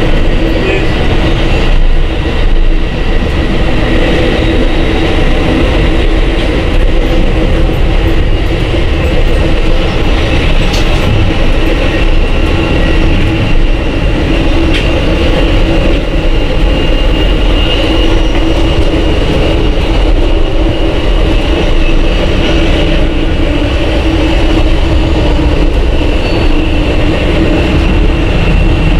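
Running noise of a moving Amtrak Superliner passenger train heard from inside the car: a steady rumble of wheels on rail with a constant high whine over a low hum.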